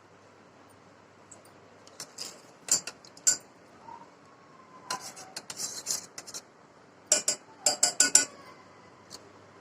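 A metal spoon clinking and scraping against a pan and small dishes, in irregular clusters of sharp clinks, as salt is spooned into the pan.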